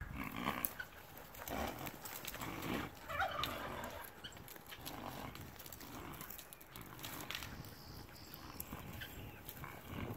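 Donkeys running and playing in a pasture, with short grunting animal sounds, several sharp clicks and a steady low rumble of wind on the microphone.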